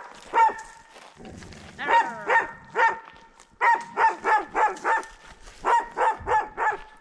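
An aggressive dog barking in quick runs of three to five barks, about three a second, with short pauses between the runs.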